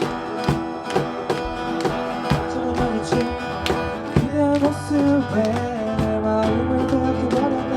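Instrumental intro of a pop song played live: an acoustic guitar strums a steady rhythm, and a held melody line with a sustained low note enters about four seconds in.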